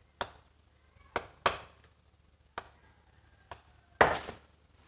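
Irregular sharp knocks and clinks of a utensil striking a mixing bowl, about six strikes, the loudest about four seconds in.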